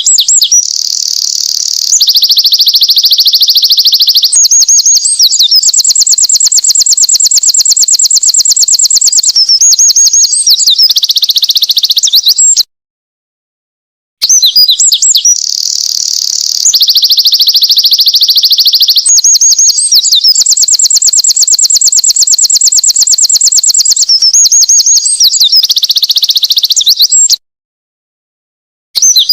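Winter wren singing its long, loud, high song: fast trills and warbled runs of notes, each song about thirteen seconds. Two full songs with a short dead-silent gap between them, and a third begins near the end.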